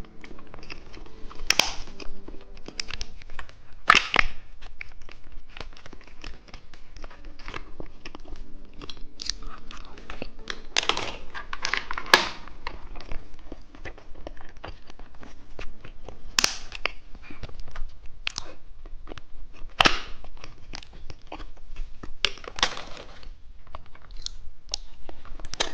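Close-miked eating of candy snacks: chewing mixed with crinkling and tearing of a plastic wrapper, in irregular sharp crackles and snaps.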